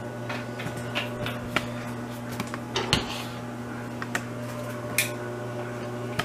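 Scattered light clicks and knocks as a plastic squeeze bottle and a small saucepan on a gas stove are handled, over a steady low hum. The sharpest knocks come about three seconds in and about five seconds in.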